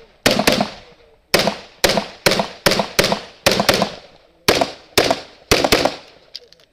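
Rapid pistol fire on a USPSA stage: about thirteen shots, mostly in quick pairs a quarter to half a second apart, each crack followed by a short echo. A few faint ticks follow the last shots.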